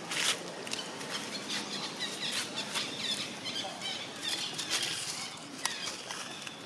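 Long-tailed macaques moving over sandy ground and dry leaves: short, scattered scuffs and rustles, with a few brief high chirps.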